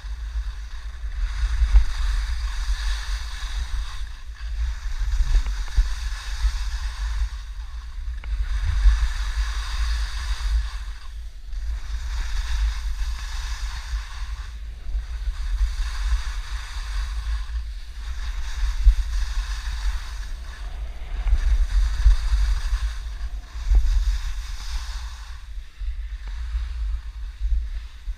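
Wind buffeting the microphone with a steady low rumble. Over it, a hissing swish swells and fades about every three seconds.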